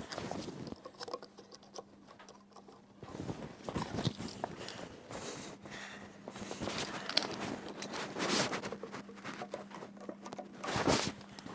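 Irregular clicks, knocks and scraping from timber bench parts and clamps being handled and set, with a louder clatter near the end.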